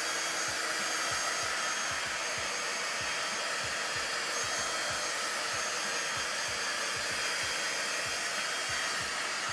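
Hairdryer running steadily with a faint high whine, blowing hot air over wet poured acrylic paint to bring up cells.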